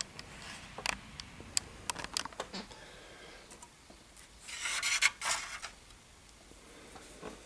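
Plastic model substation being handled on a cutting mat: a few light clicks and taps, then about four and a half seconds in a scraping rub lasting about a second as the model's base is slid round on the mat.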